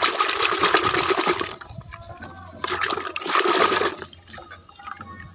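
Soapy water sloshing and splashing in a plastic bucket as a hand swishes a plastic toy through it, in two loud spells, the second about three seconds in.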